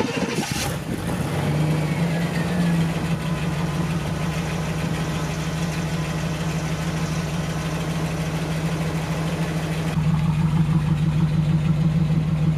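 1991 Pontiac Firebird's 305 small-block Chevy V8 idling steadily through a new Thrush Hush muffler, a pretty quiet exhaust note. About ten seconds in it is heard close to the tailpipe, louder and with an even pulsing.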